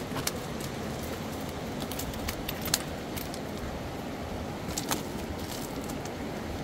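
Steady rushing of river water, with a few sharp clicks scattered through it, the loudest a little under three seconds in.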